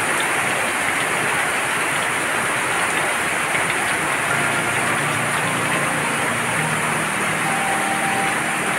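Heavy rain falling steadily, an even rushing hiss with no letup.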